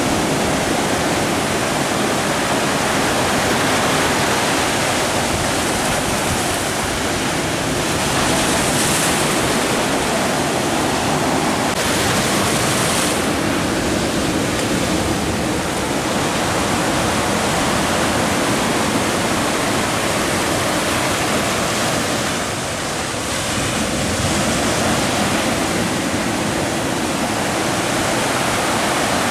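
Sea surf breaking and washing over shoreline boulders: a loud, steady rush of foaming water that surges a few times as waves break.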